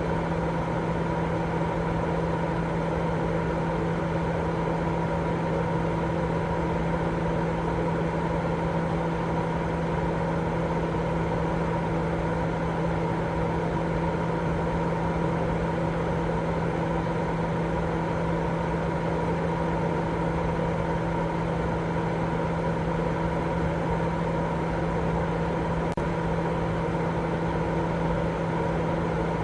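Continuous white noise for baby sleep: a steady, unchanging hiss with a low, even hum running through it.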